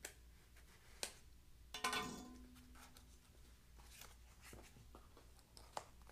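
Faint handling of a small cardboard box: scattered clicks, scrapes and rustles as fingers pick at and peel the sealing tape. The loudest scrape comes about two seconds in. A low steady hum sits underneath.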